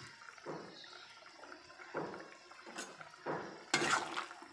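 Thin curry gravy at the boil in a kadai, bubbling and sloshing softly, with louder stirring of a spatula through it near the end.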